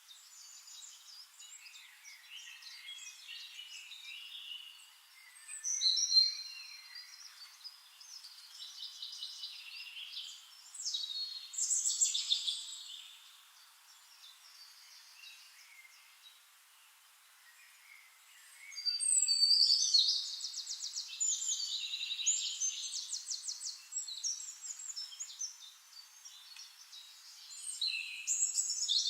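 Songbirds singing: quick high chirps and trilled phrases that come in bursts, with quieter twittering between them. The longest burst is a run of rapid repeated notes about two-thirds of the way through.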